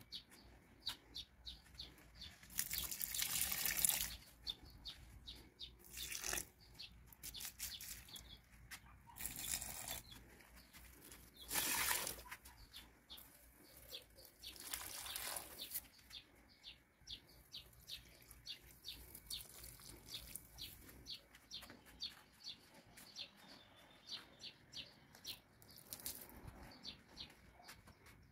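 Water poured from a container onto hanging potted plants, in about five separate pours of a second or so each in the first half, with small birds chirping steadily throughout.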